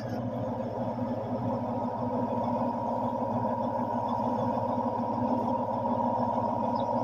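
Heavy construction machine's engine running steadily, with a fast low pulse and a steady hum, growing a little louder over the first couple of seconds.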